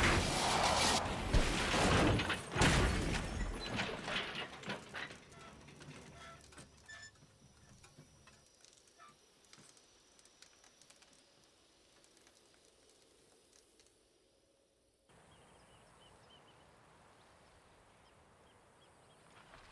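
A Cadillac rolling over in a crash: loud metal impacts and crunching in the first few seconds, then smaller clattering and ticking that fades as the wreck settles. About fifteen seconds in, the sound cuts to a faint steady outdoor hiss.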